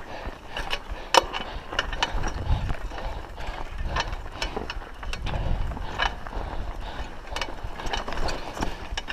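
Raleigh Ascent mountain bike clicking and rattling as it rides over a rutted, sandy dirt road, with irregular sharp clicks a few times a second. A low rumble swells twice, around a third and two-thirds of the way through.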